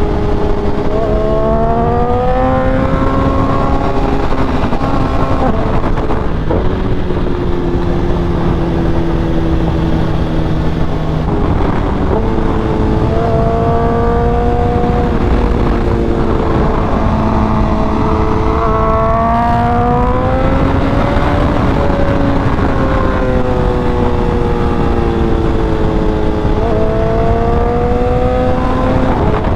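BMW S1000RR inline-four engine pulling hard, its pitch rising then dropping at each upshift. It holds a steady speed for a few seconds in the middle, eases off with falling revs later on, and pulls again near the end.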